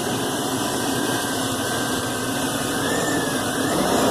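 2000 GMC Sierra's 4.8-litre V8 engine running steadily, with a faint high whine over it that wavers slightly in pitch.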